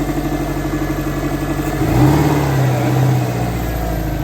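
Subaru WRX flat-four engine running on newly fitted equal-length headers. About halfway through, the engine note changes and grows louder, as in a light rev, then holds steady.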